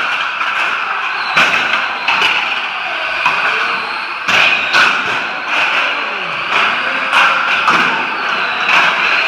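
A pack of radio-controlled streetstock racing cars running laps, their motors making a steady high whine. Repeated sharp knocks, about nine in all, come through over it as the cars bump one another and the trackside barrier.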